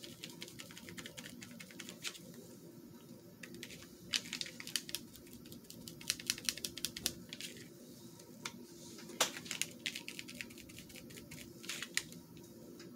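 A small sponge dabbed again and again through a plastic stencil onto a paper collage card, stippling on acrylic paint: runs of quick light taps with short pauses between them, over a faint steady hum.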